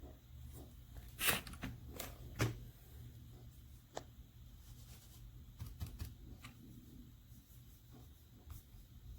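Handling noise: a scatter of light clicks and knocks, the two loudest about a second and two and a half seconds in, over a low steady hum.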